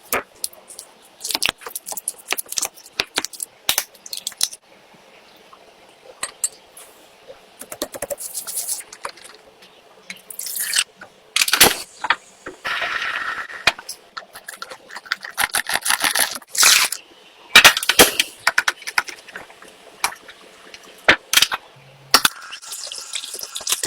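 Miniature cooking sounds: small utensils clicking, tapping and scraping against tiny dishes, with short bursts of liquid dripping and pouring, in many separate strokes rather than one steady sound.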